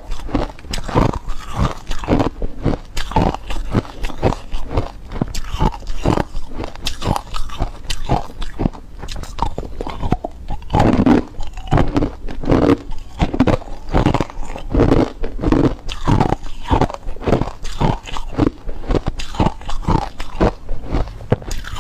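A person biting and chewing ice cubes: a steady run of crisp crunches, about two a second.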